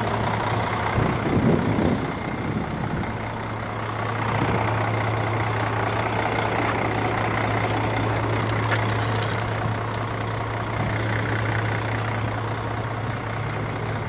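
Semi truck's diesel engine idling steadily, with a brief louder rattle about a second and a half in.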